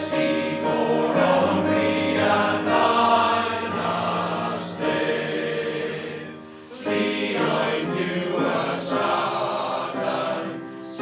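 Male voice choir singing sustained phrases in harmony; one phrase ends about two-thirds of the way through and the choir comes straight back in with the next.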